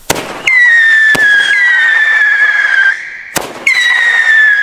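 Three whistling single-shot fireworks (Scream Shots) fired in quick succession: each gives a sharp crack followed by a loud, high whistle that slides slightly down in pitch, the whistles overlapping.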